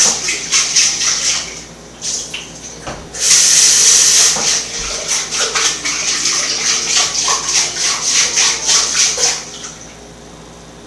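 Water running from a kitchen tap and splashing unevenly, strongest at the start and again from about three seconds in, then turned off about a second before the end.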